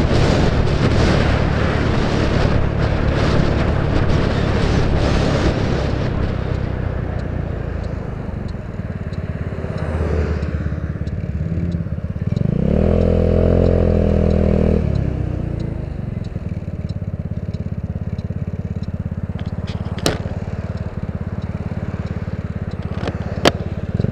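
Genuine Buddy 150cc scooter engine on the move, with heavy wind noise at road speed for the first several seconds. The noise eases as it slows, the engine rises in pitch briefly around the middle as the throttle opens, then runs steadily at low speed, with two sharp clicks near the end.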